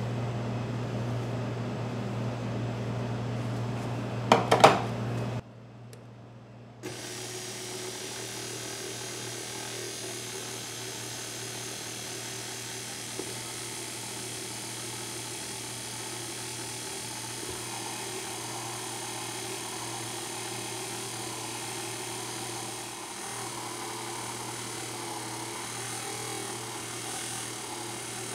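Electric mixer motor running steadily, with a quick cluster of sharp knocks about four seconds in. After a short break it runs on with a lighter, hissier sound.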